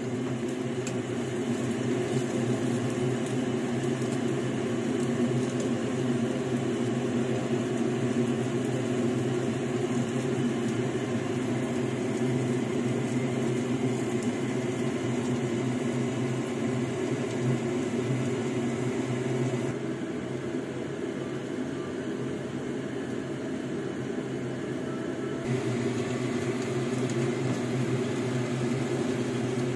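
Steady whirring hum of a kitchen fan motor running while patties pan-fry. It drops slightly in level for a few seconds past the middle.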